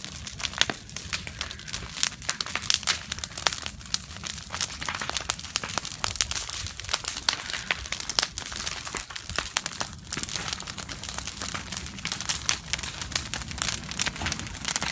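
Bonfire crackling, with many sharp snaps and pops coming irregularly throughout, over a low steady rumble.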